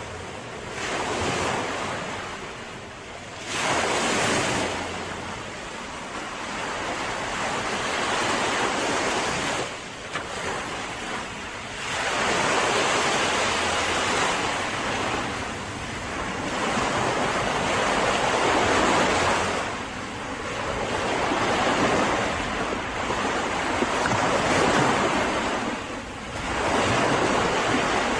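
Mediterranean sea waves breaking and washing up a beach, the rush of surf swelling and falling back every few seconds.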